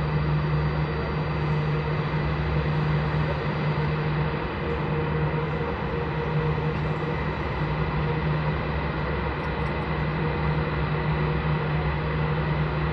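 Airbus A320 jet engines running, a steady drone with a few held tones that does not rise or fall.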